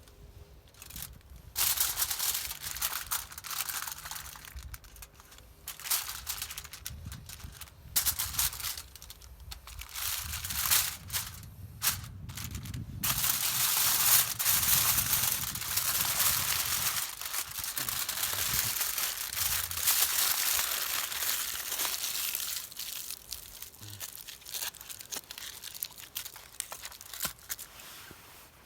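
Aluminium foil crinkling and scrunching as it is handled, in separate bursts at first and then a longer steady stretch of crinkling in the middle.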